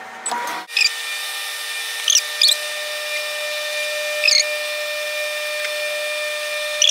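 Microwave oven started from its keypad: a short beep, then the oven starts running with a steady hum. Brief high squeaks cut through a few times.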